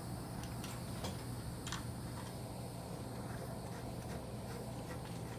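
Steady low hum with a few faint, light clicks of small metal parts being handled and fitted, mostly in the first two seconds.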